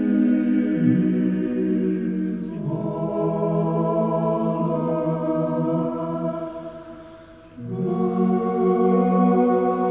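Background music of slow, sustained choir- or organ-like chords that change every few seconds, dipping briefly about seven seconds in before swelling back.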